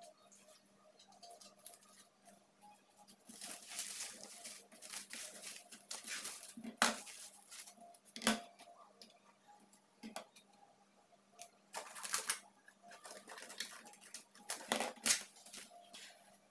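Plastic cling film being pulled off its roll and crinkled around whole fresh fish, in several rustling bursts, with a few sharp knocks on the countertop.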